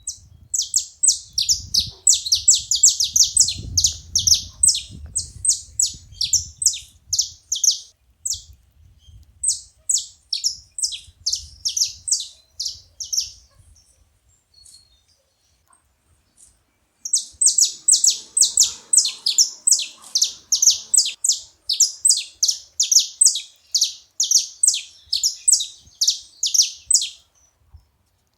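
Saffron finches singing: long runs of quick, high, falling notes, about four a second, in two bouts separated by a pause of a few seconds.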